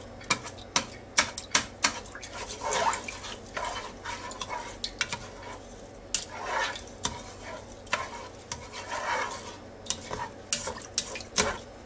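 A spoon stirring a thin, liquid mix of rice, cream of mushroom soup and water in a Ninja Foodi's cooking pot: a wet sloshing with frequent, irregular sharp clicks and scrapes as the spoon hits the pot.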